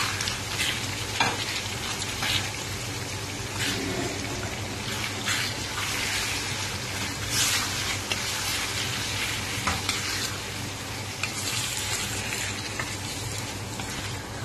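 Chicken pieces sizzling as they fry in hot oil in a kadai, stirred with a wooden spatula that scrapes against the pan now and then.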